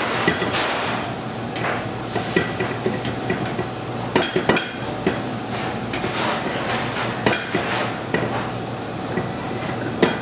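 Irregular knocks and clinks of a large stainless steel mixing bowl and utensils being handled at a wooden bench while dough is lifted out. There is a quick flurry of clattering with brief metallic ringing about four seconds in, over a steady machine hum.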